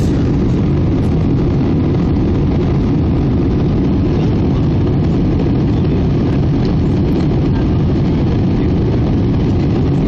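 Steady, low-pitched cabin noise of an Airbus A319 in its climb after takeoff: its jet engines running and air rushing past the fuselage, heard from a window seat over the wing.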